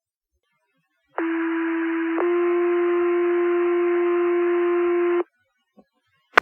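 Two-tone sequential pager alert tones over a fire dispatch radio channel. A tone of about a second steps to a slightly higher tone held about three seconds, with radio hiss under it. This is the signal that sets off the fire station's pagers ahead of the spoken page. A sharp radio click comes near the end.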